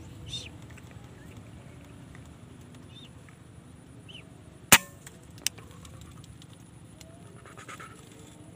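A single rifle shot, one sharp crack about halfway through, followed under a second later by a fainter click. A few faint bird chirps come before it.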